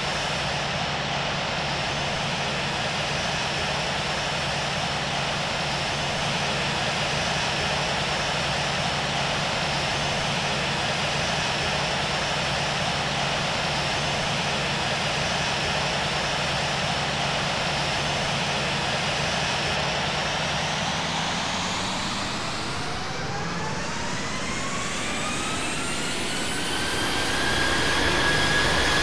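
Boeing 737-700's CFM56 jet engines heard from the cabin: a steady rush of engine and air noise with a low hum, then from about two-thirds of the way in, a whine that rises over several seconds as the engines spool up. It settles into a steady high tone, getting louder near the end.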